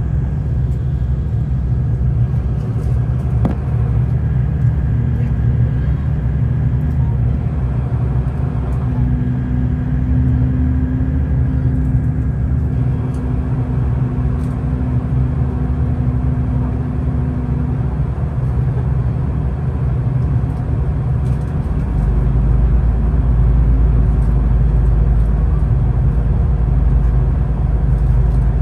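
Steady low rumble of a moving vehicle, with a steady hum from about five to eighteen seconds in; about twenty-two seconds in the deepest part of the rumble grows louder.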